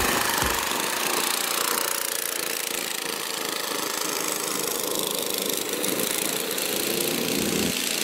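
Go-kart engines running as several karts pull away and circulate on the track, a steady small-engine drone.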